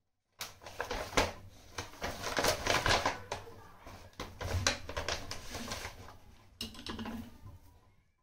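Clear plastic bag crinkling and rustling as fresh coriander and green chillies are handled and pulled from it. The crackling starts abruptly about half a second in and dies away near the end.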